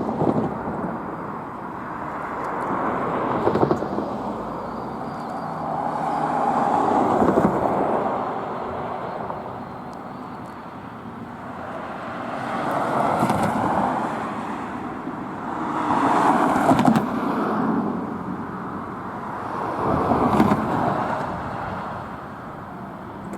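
Road traffic: cars passing one after another, about six in turn, each rising and fading as it goes by.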